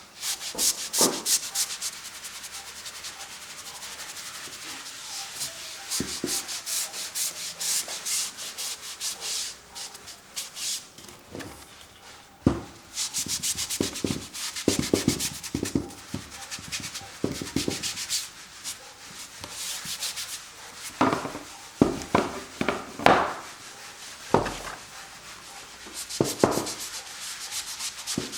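Acrylic paint being worked onto a canvas with quick, repeated scrubbing strokes, in spells of rapid strokes separated by short pauses.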